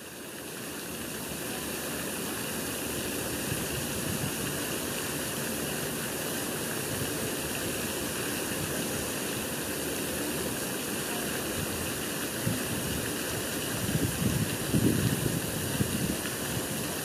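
Steady rushing, hissing outdoor noise, with low rumbling gusts of wind buffeting the microphone about fourteen to sixteen seconds in.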